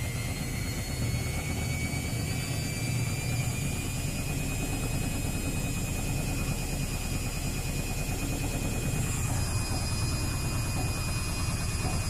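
Luxor WM 1042 front-loading washing machine in its 800 rpm spin with an unbalanced load: a steady low rumble from the drum under a motor whine that rises slightly over the first few seconds, then holds steady.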